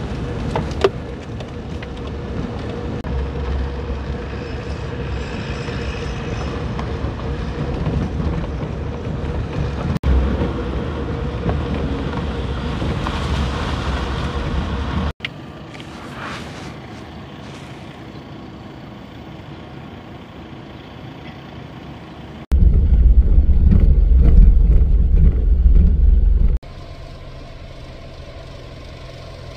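Vehicle engine and driving noise in several spliced clips, a car and a farm tractor hauling round bales among them: a steady run for the first fifteen seconds, a quieter stretch, then a deep, loud rumble for about four seconds before it drops back down near the end.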